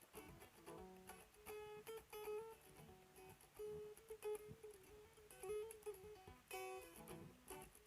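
Quiet guitar music: a melody picked in short, quick notes that keep returning to one repeated note.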